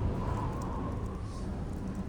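Strong snowstorm wind blowing with a low rumble, easing off in the first half second, and a faint wavering whistle above it.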